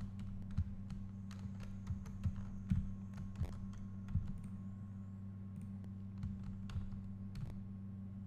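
Scattered, irregular clicks and taps of a computer keyboard and mouse being operated, over a steady low electrical hum.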